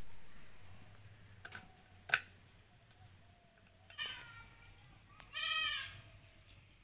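Two sharp knocks in the first couple of seconds, then an animal calls: a short call about four seconds in and a louder, longer one a little after five seconds.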